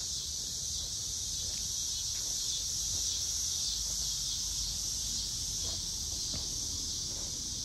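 Steady high-pitched chorus of insects, with a low rumble underneath and a few faint ticks.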